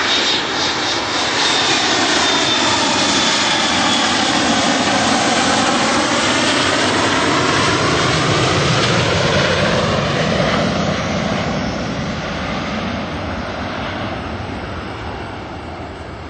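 Jet engines of a rear-engined McDonnell Douglas airliner on landing approach, passing close by. A steady loud jet roar with a thin high whine in the first few seconds changes tone as the aircraft goes past, then fades over the last few seconds.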